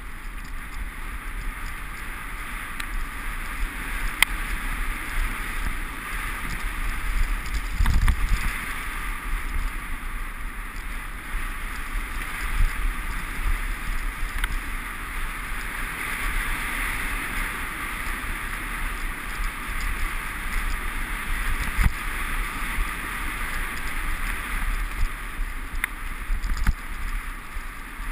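Wind rushing over an action camera's microphone during a fast mountain-bike descent, with the rumble and rattle of the bike over rough dirt trail and occasional thumps from bumps, the hardest about 8 seconds in and near 22 seconds.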